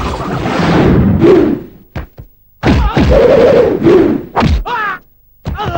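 Movie fight sound effects: heavy punch and kick thuds with whooshes, in a loud run for the first second and a half, a couple of short sharp cracks about two seconds in, then another run of hits with voices crying out. The hits stop shortly before the end.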